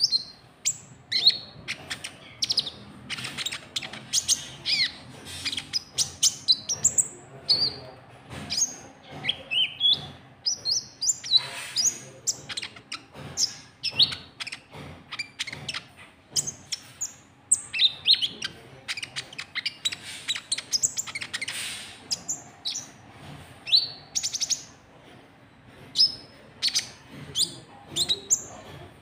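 Konin trotol bird calls used as a lure call: a rapid, irregular run of short, sharp, high chirps, several a second, many of them quick falling sweeps.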